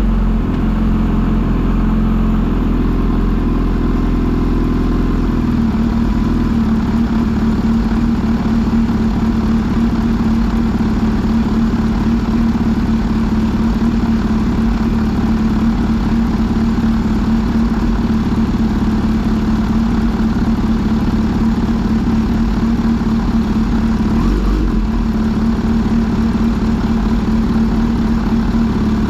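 Kawasaki Z H2 SE's supercharged inline-four engine running at a steady speed. Its note changes about six seconds in and dips briefly near the end.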